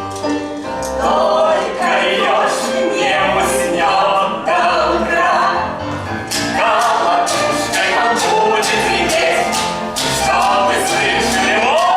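Stage musical finale song: a group of voices singing together over musical accompaniment.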